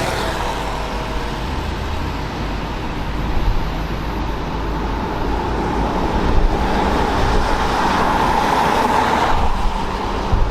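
Road traffic passing on a wet road: a steady hiss of tyres and engines, swelling for a few seconds about two-thirds of the way through.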